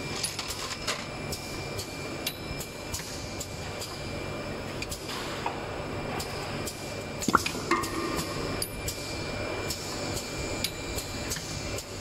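Automatic syringe filling and plugging machine running: a steady hum under irregular clicks and clacks of its moving parts and small syringe components, the loudest click about seven seconds in, followed by a brief hiss.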